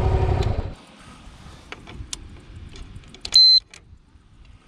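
Yamaha motorcycle engine running, cut off abruptly under a second in. Then faint clicks and handling noise, and a single short, high electronic beep about three seconds in.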